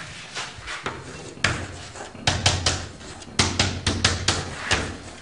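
Chalk tapping and scratching on a blackboard as words are written, in quick clusters of sharp taps.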